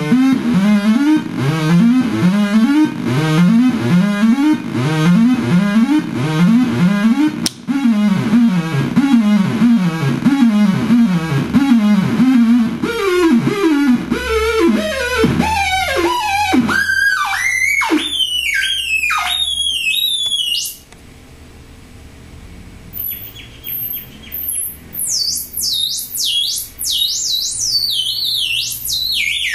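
Homemade Nibbler noise synthesizer sounding a stream of electronic pitch sweeps as its knobs are turned. Fast repeating zaps, two or three a second, slow into long falling swoops about halfway through. The sound turns much quieter about two-thirds in, then becomes high-pitched falling chirps near the end.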